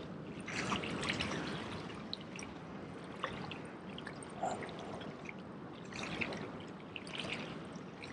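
Seawater lapping and sloshing against the jetty's rocks, swelling a little about half a second in and again about six seconds in, with a few faint ticks.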